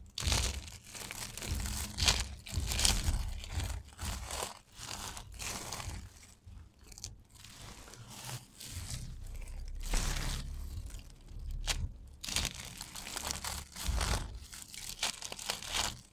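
Dry soap crushed in bare hands: crisp crunching and crumbling in irregular bursts as a bar is broken apart and squeezed into crumbs among thin soap stripes.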